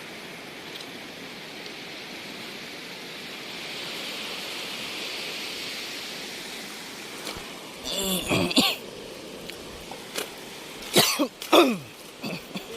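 Steady wash of sea water over a shallow reef at low tide, swelling for a few seconds in the middle. Two short bursts of a man's voice break in, about eight and eleven seconds in.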